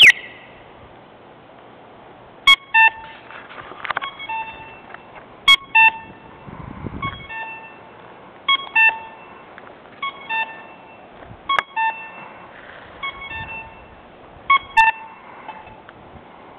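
Crosswalk sound beacon (accessible pedestrian signal) beeping nonstop, stuck on because it is broken: short electronic double beeps repeating about every one and a half seconds. A sharp click right at the start.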